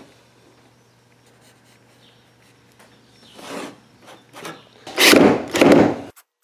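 Cordless drill boring a 3/8-inch starter hole through a plywood blank: two loud grinding stretches of the bit cutting wood, stopping abruptly near the end. Before them come a few shorter, quieter scrapes and knocks of the wood being handled.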